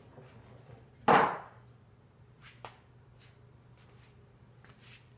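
A single sharp knock in a kitchen about a second in, ringing briefly, followed by a couple of faint clicks.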